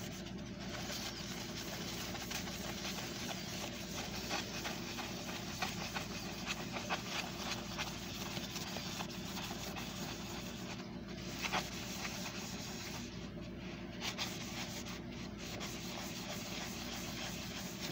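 400-grit sandpaper scrubbed back and forth by hand over a small sheet of sterling silver, a steady dry rubbing made of many quick scratchy strokes, to clean the metal surface. A low steady hum runs underneath.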